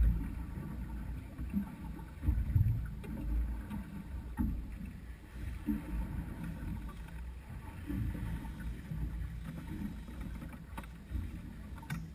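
Wind rumbling on the microphone and water moving against the hull of a small boat, with a few low thumps, the loudest about two and a half seconds in.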